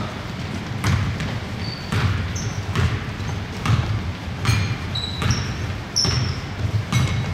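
A basketball being dribbled on a hardwood gym floor, bouncing about once a second, with short high sneaker squeaks in between.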